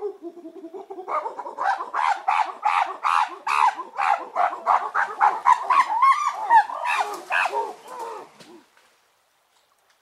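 Chimpanzee pant-hoot: a few low hoots, then about a second in a fast run of loud, rhythmic hooting calls, about three a second, growing loudest near the end of the run before it stops abruptly.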